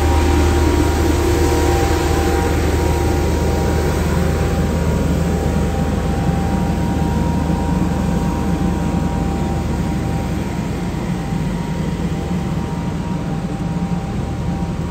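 A steady low engine rumble with faint steady hums over it, easing off a little over the last few seconds.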